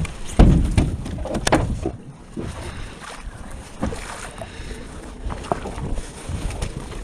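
Handling knocks and clunks on a small fishing boat, with one heavy thump about half a second in, over wind buffeting the microphone.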